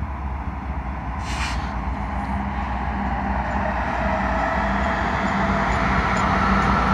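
Lead diesel locomotives of a BNSF double-stack intermodal train approaching, a steady engine drone growing louder. There is a short hiss about a second and a half in.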